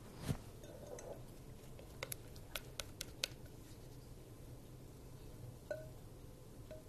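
Spatula and glass mixing bowl knocking and clicking as the last of the pancake batter is scraped out: a knock just after the start, a quick run of sharp clicks about two to three seconds in, and a single clink with a short ring near the end, over a low steady hum.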